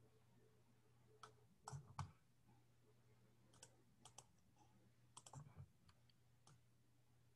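Near silence: room tone with a low steady hum and scattered faint, irregular clicks.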